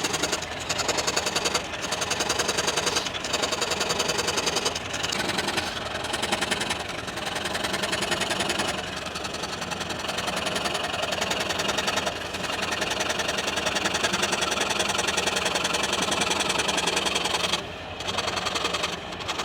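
A small motor-driven tool running with a fast, even pulsing, with short dips in loudness every second or two.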